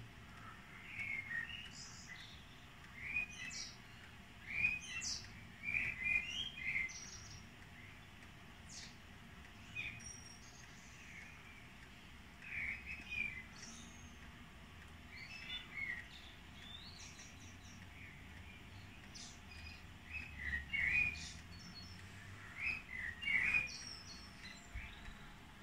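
Eurasian blackbird singing: short fluting phrases, each with high squeaky notes, coming in bursts with pauses of a few seconds between them.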